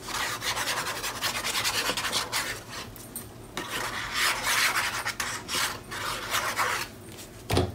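Liquid glue bottle's nozzle tip scraping along the edges of a patterned paper panel, a run of uneven scratchy strokes as the glue is laid down.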